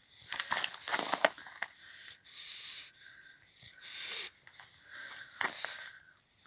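Scattered short crunches and snuffling breaths close to the microphone from an English bulldog moving about on snow.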